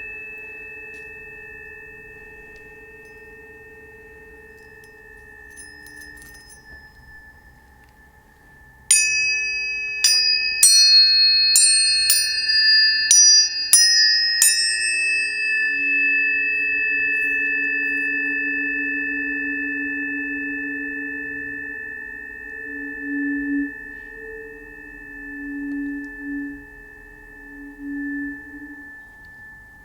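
Tuning forks ringing. A held tone fades, then about a third of the way in a quick run of about nine strikes sets several forks ringing together, and their clear tones slowly die away over lower tones that pulse.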